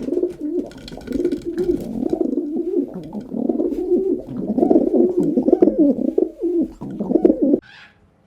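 Pigeons cooing, many low, wavering calls overlapping in a continuous burble that cuts off abruptly near the end.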